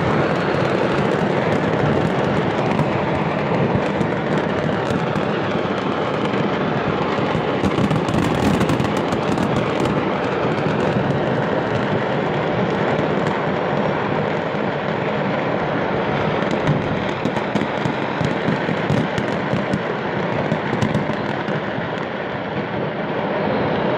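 Continuous loud rumbling roar thick with sharp crackling pops throughout: ongoing explosions.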